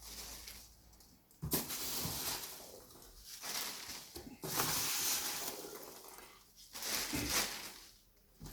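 Rustling and scraping of polystyrene foam packing pieces being handled, in several bursts with short quiet gaps.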